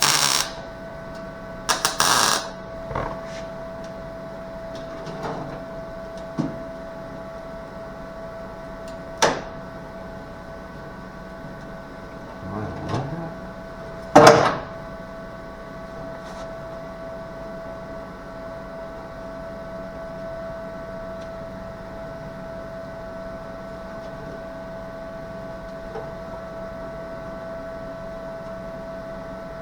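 Short bursts of welding on sheet-metal body panel, each a crackle of up to about half a second: at the start, about two seconds in, and again near 9 and 14 seconds, with quieter clicks between. A steady electrical hum with a constant tone runs underneath.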